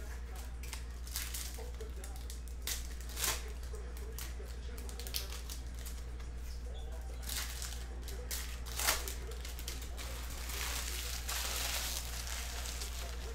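Baseball card packs being opened and handled: a few short crinkles and clicks, then a longer spell of wrapper rustling and tearing near the end, over a steady low hum.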